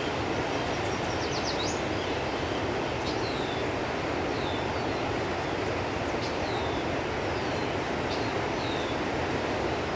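Steady rush of fast-flowing river water. Over it come short, high, downward-sliding bird chirps every second or two, with a quick run of rising notes just before the second second.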